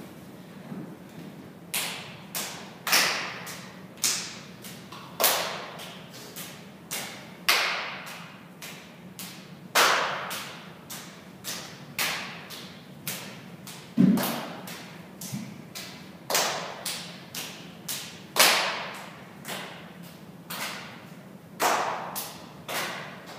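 A long string of sharp slaps and thuds at uneven intervals, roughly one or two a second, each followed by a short echo, as in a large bare room.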